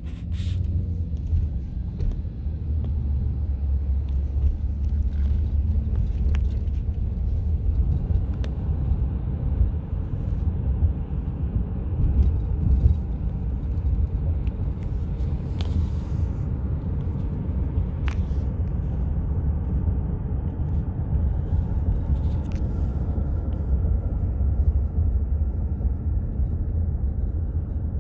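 Car driving, a steady low road-and-engine rumble with a few faint clicks.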